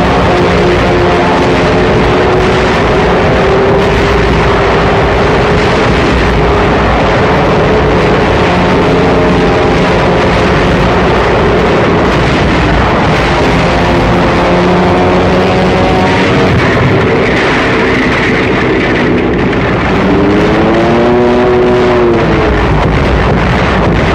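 Steady, loud drone of aircraft engines over a continuous rushing noise; near the end the engine pitch swells up and falls back as if a plane passes.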